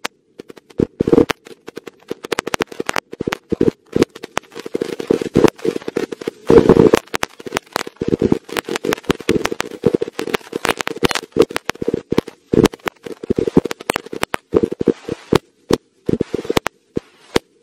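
A mat of about a thousand firecrackers going off as a chain, a rapid, irregular string of sharp bangs that runs on throughout. A few bangs stand out louder, about seven seconds in and near thirteen seconds.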